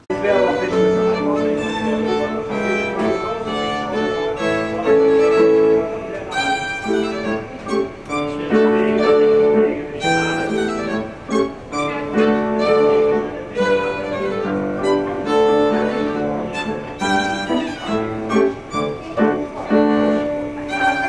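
A violin playing a classical melody with piano accompaniment, held notes over a steady flow of chords.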